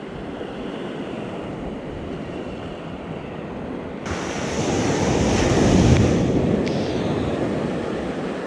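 Ocean surf breaking and washing up the beach. About four seconds in, a wave foams in close with a sudden rise in hiss, loudest a couple of seconds later, then eases back.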